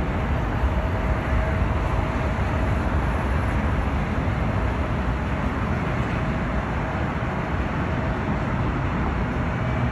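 Steady, loud low roar of distant engine noise, with a faint steady tone above it and no clear rise or fall.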